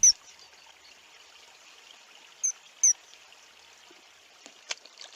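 Gently running river water, a faint steady trickle, with two short, high bird chirps near the middle.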